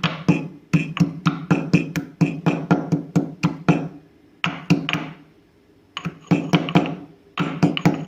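Whole spices and ginger being pounded with a pestle in a mortar: quick strikes, about four or five a second, each with a ringing tone. The strikes come in runs with short pauses around the middle.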